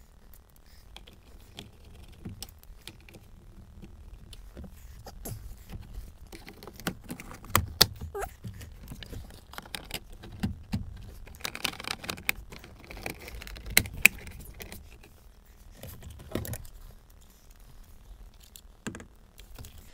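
Irregular clicks, knocks and light rattling of plastic dashboard parts and tools being handled while the instrument cluster is refitted, with a denser patch of rattling about halfway through and two sharp clicks standing out.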